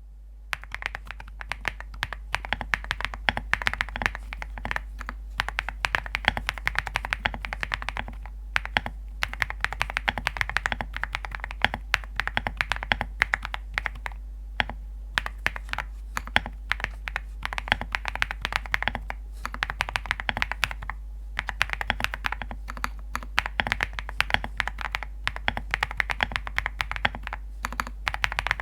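Fast typing on a fully foam-filled ZOO65 mechanical keyboard with Graphite Gold switches: a dense run of keystrokes with a stone-like tapping clack, broken by a few brief pauses.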